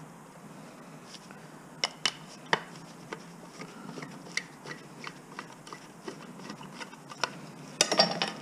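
Scattered sharp clicks and knocks of small scrap parts being handled and pulled apart by hand, with a short burst of clattering near the end.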